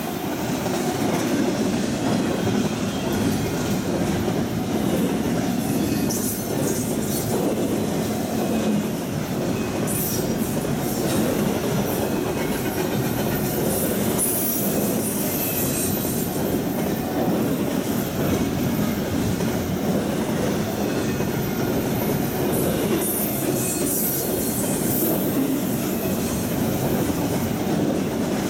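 Double-stack intermodal well cars rolling past on steel rails, a steady rumble of wheels on track. High-pitched wheel squeal rises over it several times as the cars round the curve.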